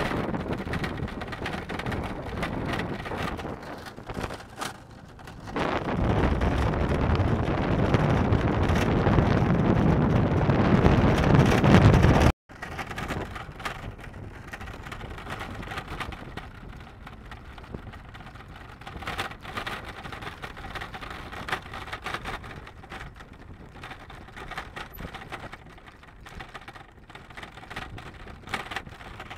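Wind buffeting the microphone, with a heavy low rumble from about six seconds in. The sound cuts off abruptly about twelve seconds in, then gives way to quieter steady rushing noise with faint scattered clicks.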